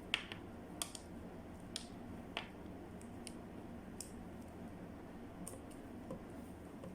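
Handling noise as the parts of a condenser microphone kit are fitted together: light, scattered clicks of small plastic pieces, roughly one a second.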